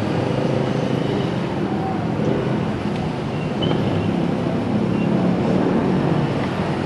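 Motorcycle engine running steadily amid road traffic noise.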